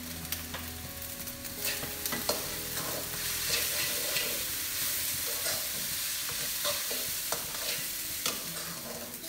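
Fried rice sizzling in a wok over a gas flame while a spatula stirs it, with scattered clicks and scrapes of the spatula against the wok.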